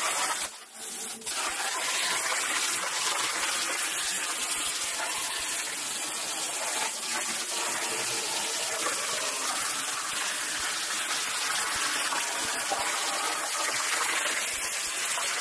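CNC plasma torch cutting hot-rolled steel sheet, a loud steady hiss of the arc and air jet. The hiss breaks off briefly about half a second in and starts again as the torch begins the next cut.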